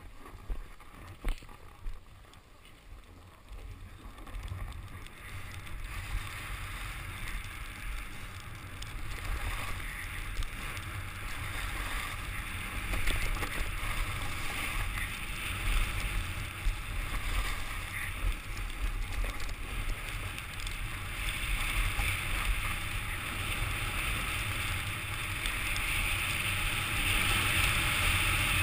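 Skis scraping over packed snow with wind buffeting the microphone, growing louder as the skier picks up speed over the first several seconds. A couple of sharp knocks near the start.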